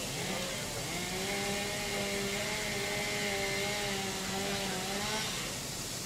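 A house fire burning with a steady rushing noise, over which a single held, slightly wavering tone sounds for about five seconds and then stops near the end.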